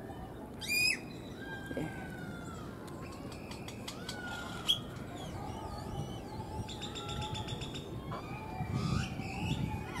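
Male great-tailed grackle calling in courtship: a sharp rising whistle about a second in, then slurred whistles, a loud click, and a dry, evenly ticking rattle near the end.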